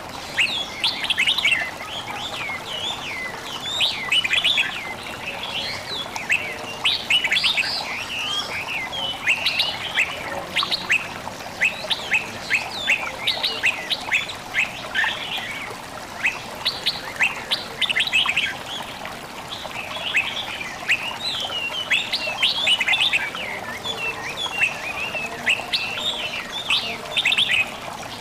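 Many small birds chirping and singing in quick, high chirps over a steady background of babbling water.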